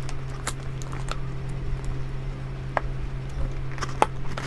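Clear plastic seal tape being peeled off a cardboard product box, giving scattered small crackles and ticks as fingers pull it away, over a steady low hum.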